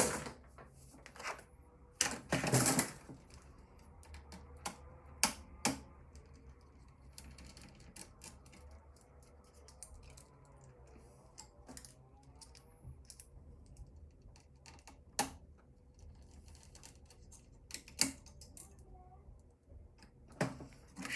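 Scattered clicks, taps and knocks of small plastic and metal computer parts being handled and pried apart, with a louder clatter about two to three seconds in.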